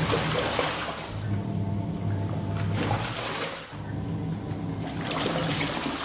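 Washing machine agitating a load of clothes in water: the motor hums steadily while the water sloshes and churns. There is a short pause a little past the middle, after which the motor restarts at a different pitch, as the pulsator changes direction.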